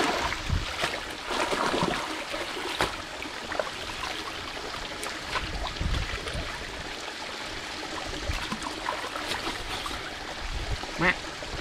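Shallow water trickling and splashing, with scattered light clicks and a few low thuds, one about halfway through and one near the end.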